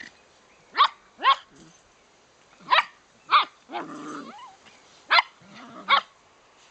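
Puppies barking in play: six short, high yaps in three pairs about half a second apart, with a longer, lower growl between them near the middle.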